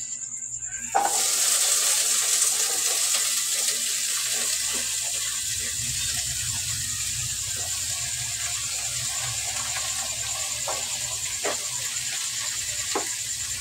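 A steady, high hiss that starts suddenly about a second in and keeps on evenly, with a few faint clicks under it near the end.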